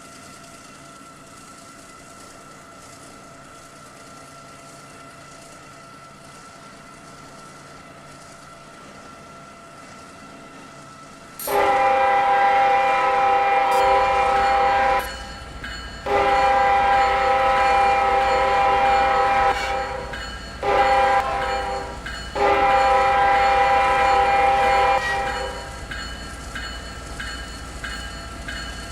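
Freight locomotive air horn sounding the grade-crossing signal (long, long, short, long), starting about eleven seconds in, as the lead locomotive of a coal train approaches a crossing. Before it there is a faint steady hum, and under and after it the low rumble of the oncoming train.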